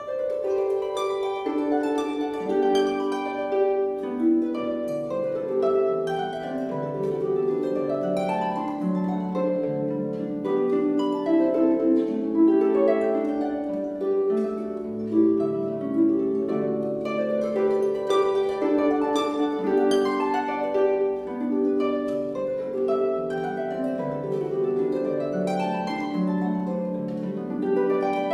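Concert pedal harp played solo: a continuous flow of plucked notes and rolled chords, ringing over one another across the harp's middle and low range.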